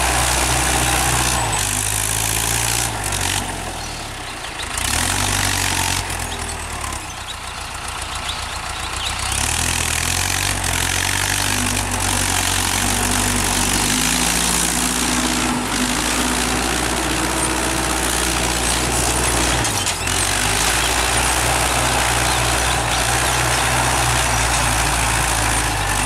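Mahindra Arjun tractor's diesel engine running while pulling a cultivator through soil. Its pitch rises and falls as the engine speed changes, and it goes quieter for a few seconds between about three and nine seconds in.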